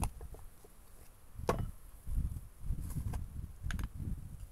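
Handling clicks and knocks of a small jar and its plastic screw lid on a wooden cutting board as the jar is opened and the lid set down, the sharpest knock about a second and a half in. A low rumble sits under the later part.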